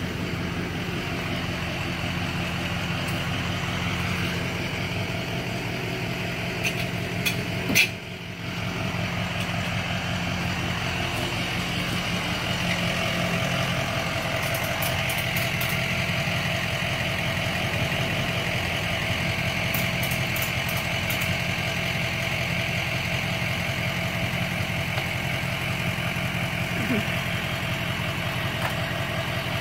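Tow truck's engine idling steadily, with a single sharp knock about eight seconds in.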